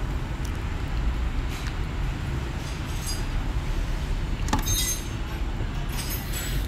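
Steady low rumble of background noise, with a few short metallic clicks and scrapes from a screwdriver working the terminal screws and wires of a three-phase motor's reversing switch. The sharpest click comes about four and a half seconds in.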